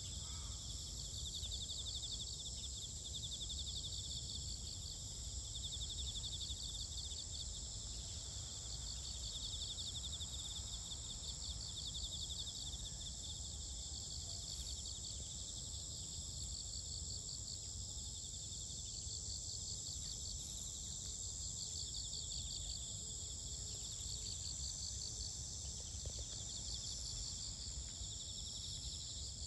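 Insects chirping outdoors: a steady high-pitched buzz, with pulsing trills that come and go every few seconds, over a low steady rumble.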